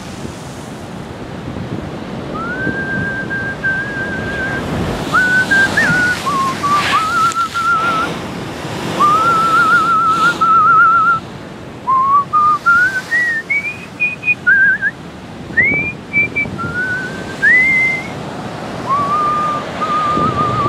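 A person whistling a tune in short phrases of held, gliding and wavering notes, starting about two seconds in, over the steady rush of surf breaking against the breakwater.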